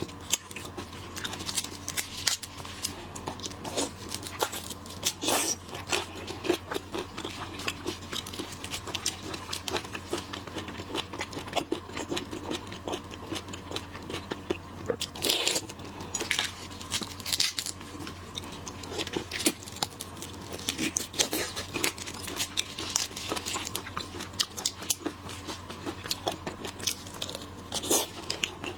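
Close-miked eating of shellfish: shrimp shells cracking and tearing, with biting and chewing, heard as a dense, irregular run of crisp clicks and crackles over a low steady hum.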